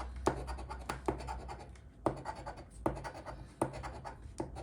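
Scratch-off lottery ticket being scratched: repeated rasping strokes across the card, each starting with a sharp scrape, roughly one every 0.8 seconds.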